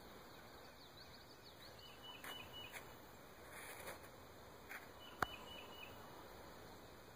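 Faint dawn woodland ambience with a steady low hiss and a few faint, high bird chirps, broken by one sharp click about five seconds in.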